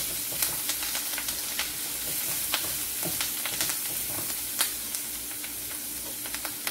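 Ginger-garlic paste frying in melted butter in a frying pan, a steady sizzle with scattered small pops and crackles as a silicone spatula stirs it around the pan.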